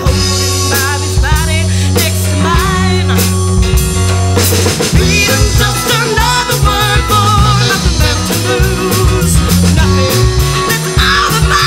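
Live folk-rock band playing a song: a sustained bass line and drum kit, with singing over the top.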